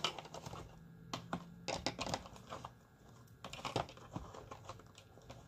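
Small objects being picked up and set down on a hard surface: irregular light clicks and knocks. A faint steady hum stops about two seconds in.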